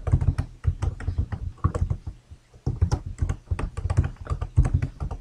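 Computer keyboard being typed on: a quick run of key clicks, with a brief pause a little after two seconds in.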